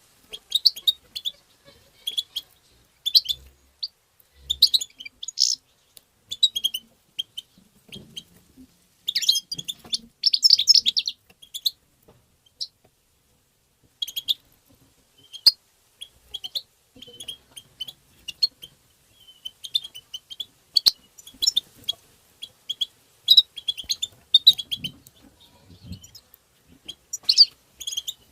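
European goldfinch twittering: quick runs of high, chattering call notes repeated again and again, with a short pause about halfway through.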